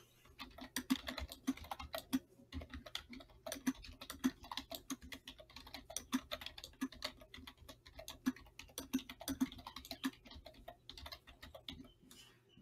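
Typing on a computer keyboard: a quick, uneven run of key clicks that thins out and stops near the end.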